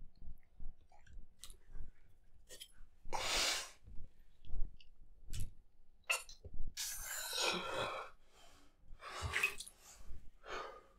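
A man's heavy, forceful breathing: a few irregular hissing exhales and gasps, one of them strained with a little voice in it, and faint short clicks between them.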